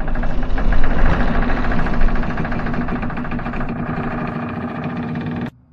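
Intro sound effect: a loud, dense low rumble with a steady hum and a fast rattle running through it, cutting off suddenly about five and a half seconds in.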